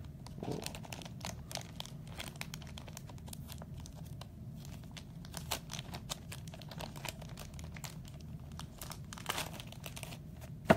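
Crinkling and rustling of trading-card pack wrappers and cards being handled, in many small crackles over a steady low hum, with a sharp knock near the end.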